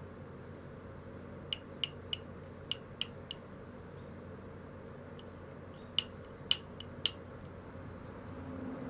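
Pressure flaking a knapped stone knife blade: short, sharp clicks as the flaking tool pops small flakes off the edge. They come in two bursts of several clicks, one about a second and a half in and another about six seconds in.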